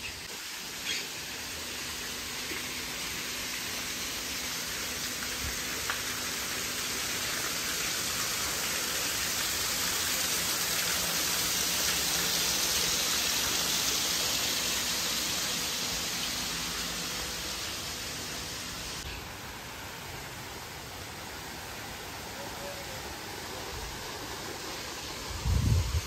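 Steady rush of running water that swells to its loudest around the middle and then eases, its hiss dropping away abruptly about three quarters of the way through. A short low thump comes near the end.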